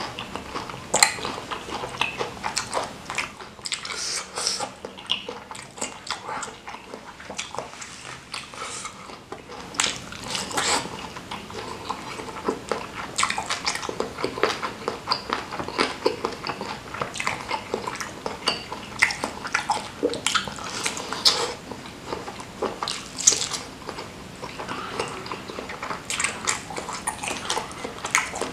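Close-miked chewing of bakso meatballs in spicy chili broth, with many short, irregular mouth clicks and smacks throughout.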